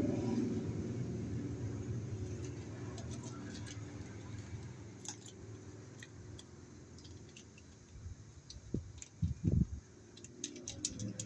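A low engine rumble fades away over the first several seconds. Light clicks and a few soft knocks follow as small parts of the light fixture are handled.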